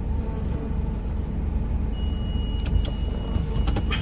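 Automatic car wash spraying water hard against the side of the car, heard from inside the cabin as a steady rumble. A thin steady high tone joins about halfway in, with a few light knocks.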